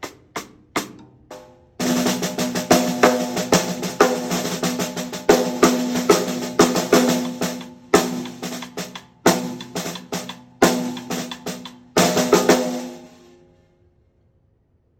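TAMA Starclassic walnut/birch 14x6.5-inch snare drum being played. A few single strokes come first, then a fast, dense run of strokes with the drum ringing from about two seconds in. The playing stops a little before the end and rings out.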